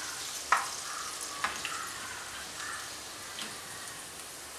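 Hot oil sizzling in a frying pan as crispy fried potato-thread chicken pieces are scooped out with a perforated metal slotted spoon. Two sharp clicks, about half a second and a second and a half in, from the spoon knocking against the pan.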